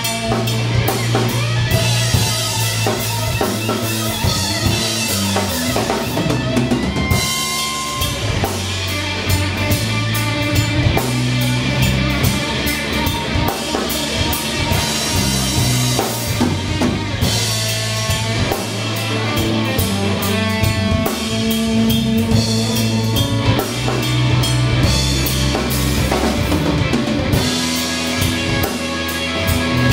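Live blues trio of electric guitar, electric bass and drum kit playing an instrumental passage with no vocals.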